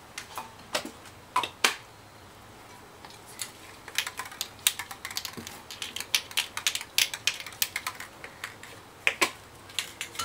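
A quick, irregular run of light clicks and clinks from spray paint cans and tools being handled, densest in the middle.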